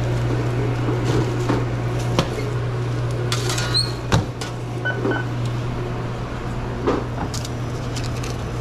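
Sandwich-counter work: scattered clicks and knocks, the sharpest about four seconds in, over a steady low hum of kitchen equipment.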